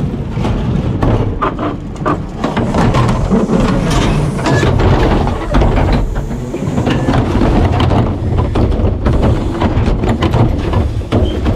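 Rear-loader garbage truck running: a steady low engine rumble with many sharp clanks and cracks throughout.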